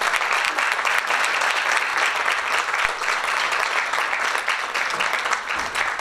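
Audience applauding, a dense, steady patter of many hands clapping.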